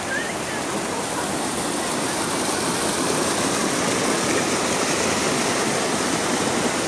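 Waterfall cascading over rocks: a steady, full rush of falling water that grows slightly louder over the first few seconds.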